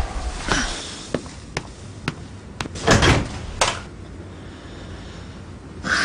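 A thump at the start, then a run of light knocks about twice a second, and two heavier bangs around three seconds in.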